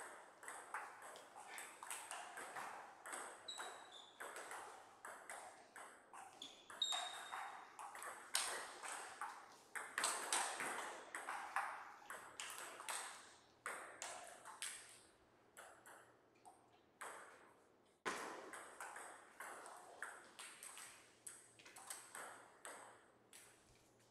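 Table tennis rallies: the ball clicking back and forth in quick succession off rackets and table, with short breaks between points.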